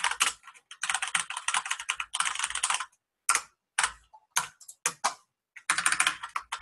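Typing on a computer keyboard: fast runs of keystrokes, with a handful of single key presses in the middle and another quick burst near the end.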